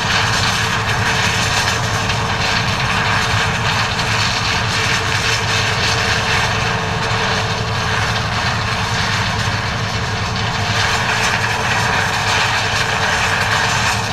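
John Deere 9400 combine running steadily under load while harvesting corn: a continuous engine drone with machinery whine and rushing noise.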